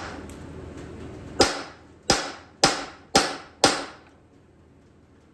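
Five ringing strikes of a hammer on a steel punch, about two a second, driving a cut-off rivet out of a truck's steel frame.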